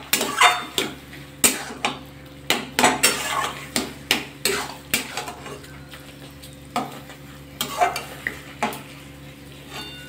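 Flat metal spatula scraping and knocking against a metal kadai as it stirs a thick taro-leaf and coconut curry. The strokes are irregular, about one or two a second, busiest in the first half and thinning out toward the end.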